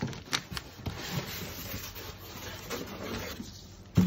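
Cardboard box being handled and its flaps pulled open: cardboard rubbing and scraping, with a few sharp clicks in the first second and a louder knock at the end.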